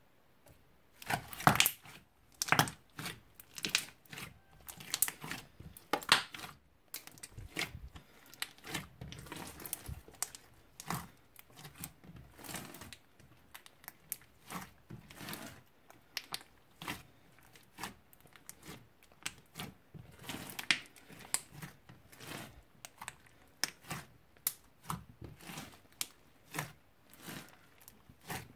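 Slime being squeezed, stretched and folded by hand, giving irregular sticky crackles and pops, loudest in the first several seconds.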